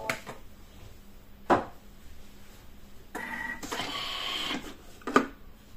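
Thermomix TM6 at the end of a mixing run: sharp clicks and a knock, then a mechanical whir lasting about a second and a half, as the machine's lid is released and opened.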